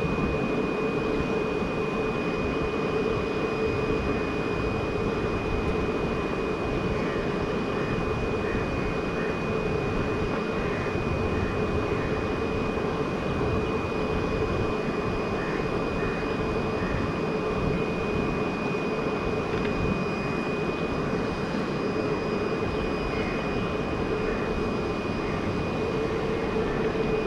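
Steady droning hum with a constant high-pitched whine over it and a few faint chirps scattered through.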